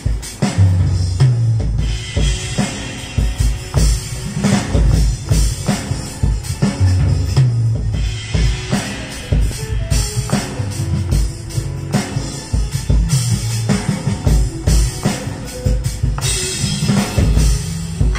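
Sampled drum kit played from the keys of an Akai MPK mini: a steady beat of bass drum and snare hits, with low pitched notes underneath.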